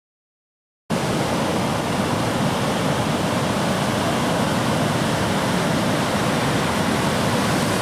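Ocean surf breaking on a beach: a steady rush of whitewater that starts about a second in.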